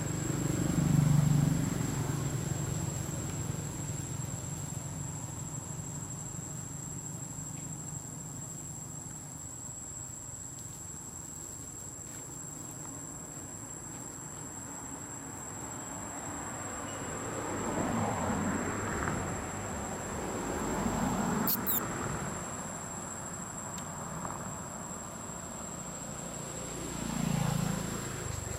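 A steady, high-pitched insect drone runs throughout. A few louder, low rumbling noises come about a second in, in the middle, and again near the end.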